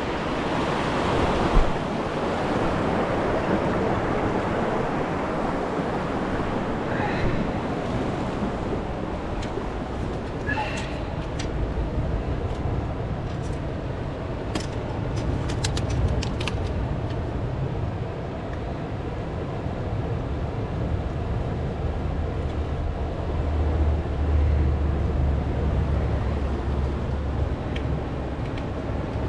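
Sea waves washing in steadily, with wind on the microphone. A low hum rises under it in the second half, and a few faint chirps and light clicks come through.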